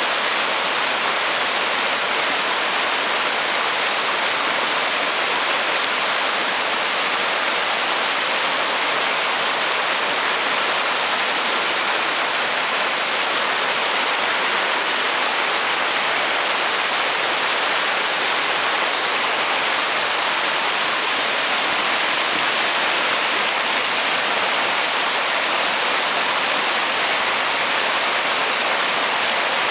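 Shallow rocky mountain river rushing over boulders and small rapids: a steady, even hiss of white water with no change in level.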